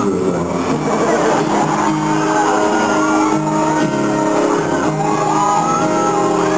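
Acoustic guitar played live with a man singing at the microphone, and shouts and whoops from the audience over the music, ringing in a large hall.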